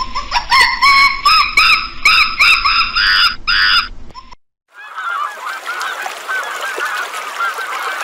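Goose honking repeatedly, about nine loud honks in quick succession over four seconds. After a brief break, a flock of waterfowl calls continuously over one another.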